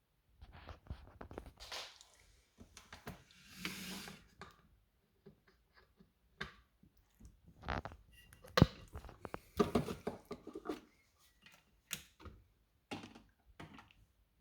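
Handling noises: irregular clicks, knocks and rustles of objects being moved about, with one sharp knock about two-thirds of the way through.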